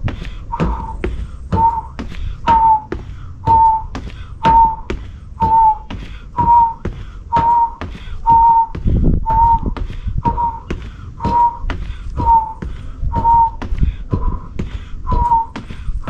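A short whistle-like note repeats about once a second, each slightly bending in pitch. Between the notes come sharp taps of sneakers stepping on a concrete patio during high-knee marching.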